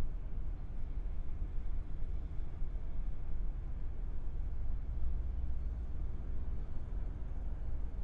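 Harbor ambience: a steady low rumble with no distinct events.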